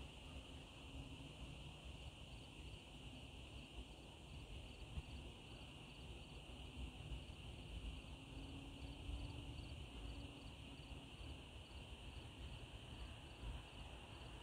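Faint insect chorus: a steady high-pitched buzz of crickets or similar insects with a faint rapid pulsing just above it, over a low rumble.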